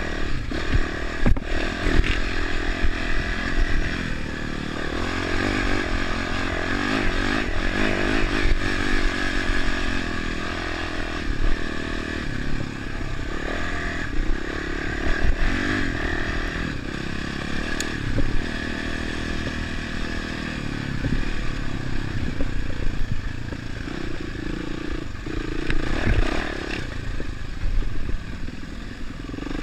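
Dirt bike engine running and revving up and down as the bike rides a rough, rutted trail, with clatter and sharp knocks from the bike going over the bumps.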